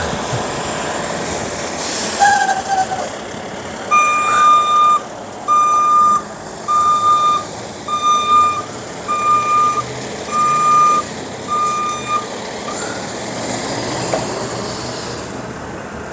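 Garbage truck's reversing alarm beeping seven times, roughly one beep a second, over the truck's running engine, with a short hiss about two seconds in.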